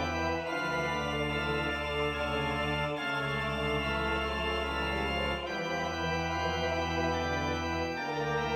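Organ playing slow, sustained chords over a held bass note, moving to a new chord about every two and a half seconds.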